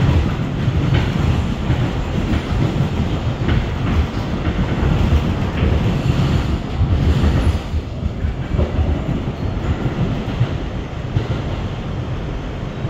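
Running noise of an MTA R211A subway car heard from inside the cabin: a steady rumble of steel wheels on rail, with now and then a click as the wheels cross rail joints. It eases a little about eight seconds in.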